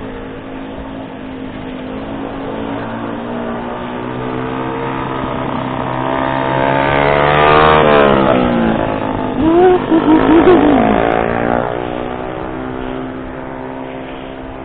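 A loud vehicle engine in road traffic draws close, rising in pitch, and drops in pitch as it passes about eight seconds in. It follows with a few quick revs about ten seconds in, over a steady engine hum underneath.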